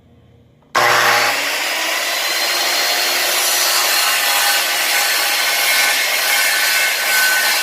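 Circular saw switched on about a second in, spinning up and then cutting steadily through a laminate floor plank.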